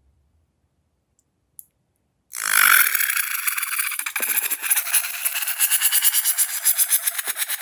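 Crunchy slime crackling and crunching as it is worked, a dense run of fast tiny crackles that starts suddenly about two seconds in and keeps going.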